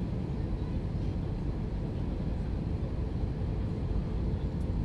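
Steady low rumble of airliner cabin noise inside an Airbus A321-231 descending on approach: its IAE V2500 engines and the airflow over the fuselage, with a faint steady hum near the top.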